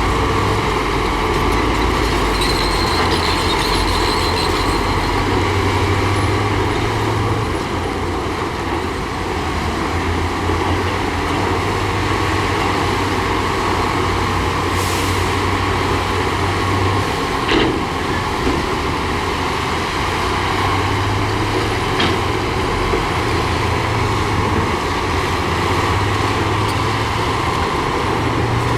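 Heavy diesel earthmoving machinery, a bulldozer and dump trucks, running steadily with a low engine drone. There is a brief hiss about halfway through, and two sharp clanks later on.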